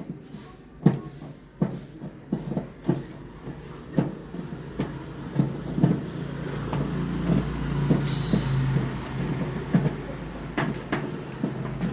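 Irregular knocks and clanks, roughly one or two a second, from hands-on installation work, over a low mechanical hum that swells in the middle and fades near the end.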